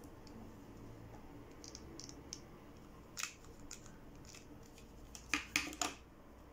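Light clicks and taps from gluing rowan berries onto a paper leaf with a hot glue gun: a few soft clicks, a sharper click about three seconds in, and a quick run of three or four louder clicks near the end.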